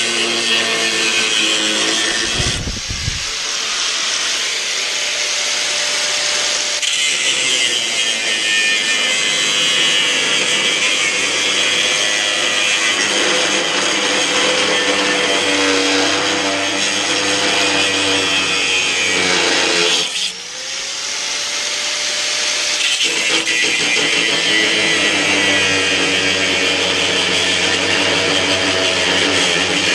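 Angle grinder cutting steel stock, running steadily under load. About twenty seconds in it eases off briefly and spins back up.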